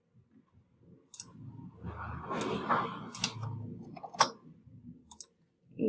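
Computer keyboard and mouse clicks while typing: a handful of separate sharp clicks, with a stretch of soft low noise between about one and four seconds in.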